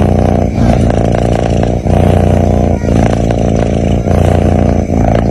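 A sleeping kitten snoring: a loud, rough, buzzing rattle in alternating breaths, breaking briefly about once a second as each breath turns.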